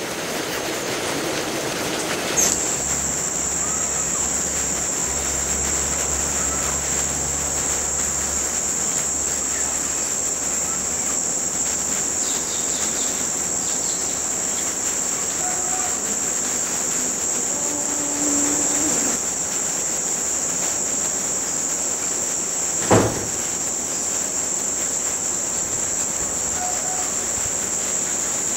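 Insects droning steadily in one unbroken high-pitched note, which starts abruptly about two seconds in. A single sharp knock cuts through about three-quarters of the way through.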